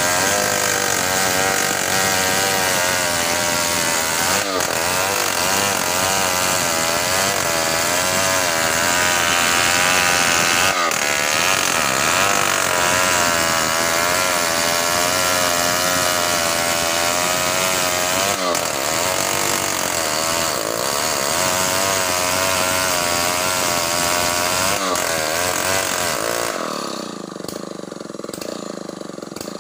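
Large two-stroke chainsaw running at high revs, cutting through a big hardwood log, its pitch wavering as it bogs under load. Near the end it falls back to a quieter, duller running.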